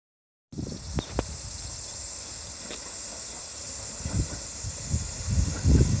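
Outdoor ambience: a steady high-pitched hiss, with two sharp clicks about a second in and uneven low rumbling that grows louder toward the end.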